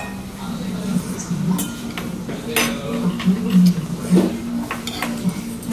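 Slurping and chewing a mouthful of spicy mixed cold noodles, with metal chopsticks clicking against a stainless steel bowl a few times.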